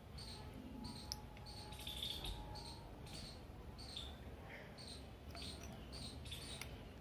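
Faint insect chirping: short, evenly spaced high chirps, a little under two a second. A light click about a second in comes from a glass test tube being handled against a binder clip.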